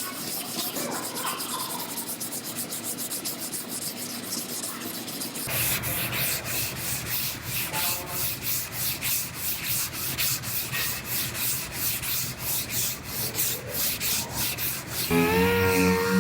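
Hand sanding on a car body panel repair: quick, rhythmic back-and-forth strokes of sandpaper, with the stroke sound changing about five seconds in. Near the end a power tool starts with a steady whine.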